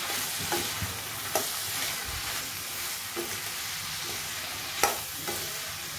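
Metal spatula stirring and tossing cauliflower, onion and tomato with spice powders in a hot metal kadai: a steady frying sizzle with a few sharp clinks of the spatula against the pan, the loudest nearly five seconds in.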